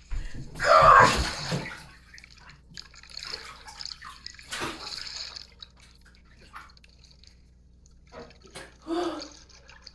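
Pool water splashing as a person plunges in: a loud splash about a second in, a second, shorter splash near the middle, and lighter sloshing between.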